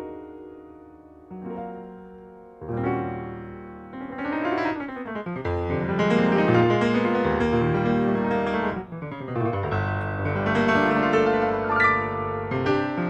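Piano playing an unaccompanied-sounding ballad passage: a few sparse, ringing chords at first, then fuller and louder chordal playing from about three seconds in.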